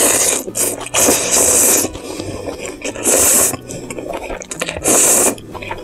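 Close-miked slurping of spicy beef ramen noodles: four loud slurps, the longest about a second.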